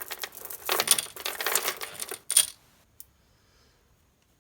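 Strands of glass beads clicking and clattering against each other as they are handled, for about two and a half seconds, then two single sharp clicks.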